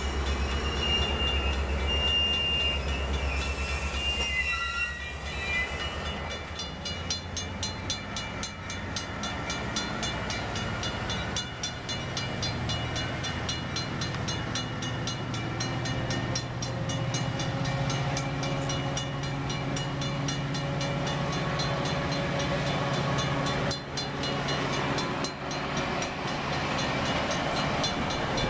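Metra bilevel commuter cars rolling past and gathering speed: evenly spaced clicking of wheels over the rail joints that comes faster and faster, over the steady drone of the diesel locomotive, whose note rises partway through. A few thin high squeals sound in the first few seconds.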